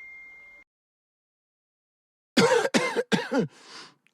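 A person coughing four times in quick succession, throaty voiced coughs each falling in pitch, starting about two and a half seconds in. Before them, a steady high beep cuts off just under a second in, followed by silence.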